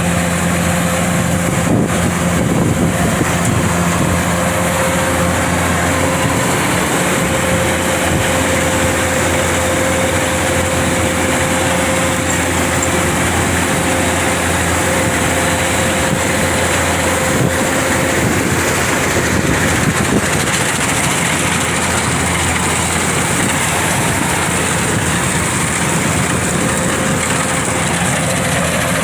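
Kubota DC-105X combine harvester's diesel engine running steadily, with a steady whine over the hum that fades out about two-thirds of the way through.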